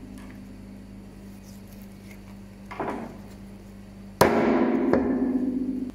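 Meat cleaver chopping through wild boar ribs on a cutting board: a soft knock near the middle, then one hard chop about four seconds in whose metallic ring fades slowly.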